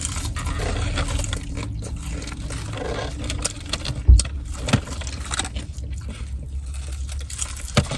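Steady low hum inside a car's cabin, with scattered small clicks and rustles of handling food and one heavy thump about four seconds in.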